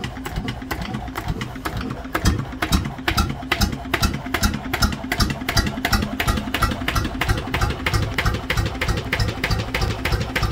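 1930s Lister JP1 (CS 9-1) single-cylinder water-cooled stationary diesel engine running steadily, its exhaust firing in an even, regular beat.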